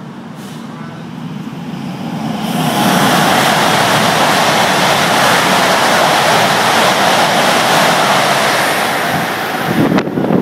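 Velaro high-speed train passing a station platform at full speed without stopping: a rushing roar of air and wheels that builds over about two seconds, holds steady for about seven, then falls away. Near the end its slipstream buffets the microphone in gusts.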